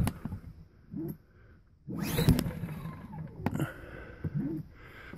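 Recoil starter of a Powerhorse 2000-watt inverter generator being pulled on a cold start with the choke on, the engine cranking without catching. A sharp click at the start and knocks around the main pull about two seconds in.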